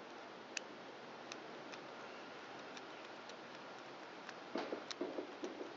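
Light, scattered clicks of small carburetor parts being handled and worked on the bench, about half a dozen over a faint steady hiss, with soft handling noise near the end.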